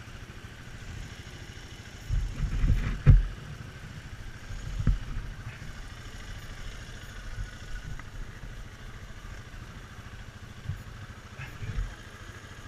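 ATV engine idling steadily, with a few loud thumps and knocks about two to three seconds in and fainter ones later.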